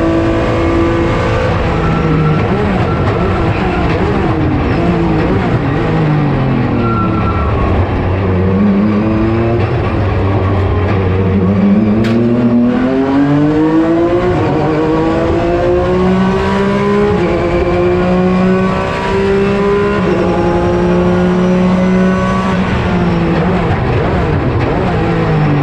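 Porsche 996 GT3 RSR's naturally aspirated flat-six racing engine at race pace. Its pitch falls in steps as the car brakes and downshifts, then climbs as it accelerates hard and holds at high revs. It drops again near the end as the car slows once more.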